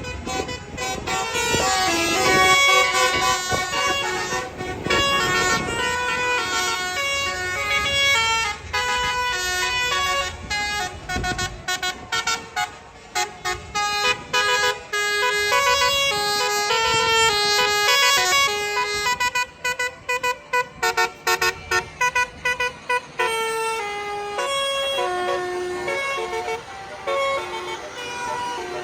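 Tour bus's multi-tone Basuri 'telolet' air horn playing a melody in stepped notes, with a fast run of short staccato blasts about two-thirds of the way through. A bus engine runs low underneath during the first part.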